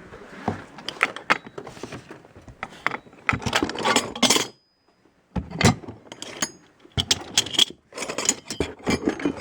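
Loose metal garage-door hardware clinking and rattling in irregular clicks and clatters as it is handled and rummaged through, with a sudden brief silence about halfway through.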